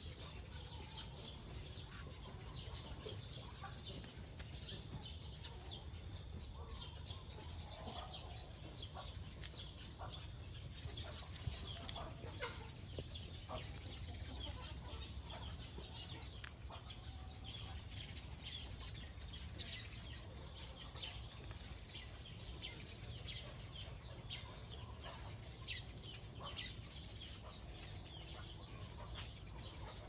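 Small birds chirping, many short high calls overlapping throughout, over a steady low background rumble.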